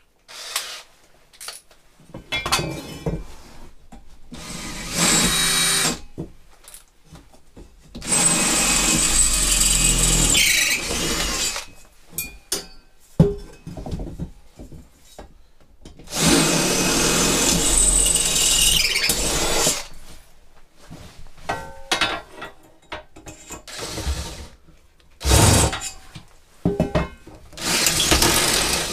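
Cordless drill boring into the steel tube frame of a welding cart, running in several bursts of a few seconds each. Short knocks and clatters of metal parts being handled come between the bursts.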